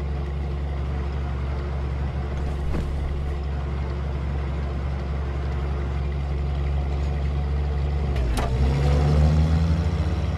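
Car engine running at speed with a steady low drone. About eight seconds in there is a sharp click, then the engine revs up with a rising pitch.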